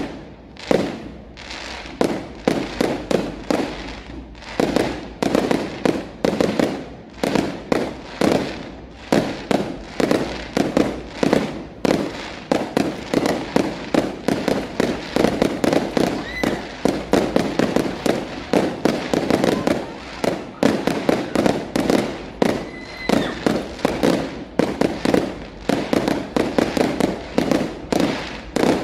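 Aerial firework shells bursting in a dense, continuous barrage, several sharp bangs every second without a pause.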